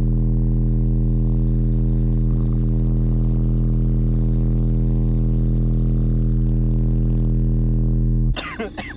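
Four Alphard Machete Sport M15 15-inch subwoofers playing a steady low bass sine tone at about 155 dB for an SPL measurement, heard inside the car as a heavily distorted drone full of overtones because the microphone cannot handle the pressure. The tone cuts off suddenly near the end.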